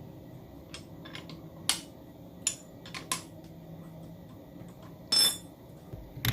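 Metal lug wrench on a car wheel's lug nuts: scattered sharp metallic clicks and clanks, one louder about two seconds in, a longer grating clank about five seconds in, and a quick run of clicks near the end, over a low steady hum.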